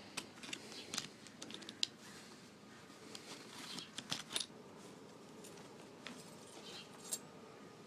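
Mosin Nagant rifle parts being handled: faint scattered clicks and light metal taps, a few sharper ones about two and four seconds in.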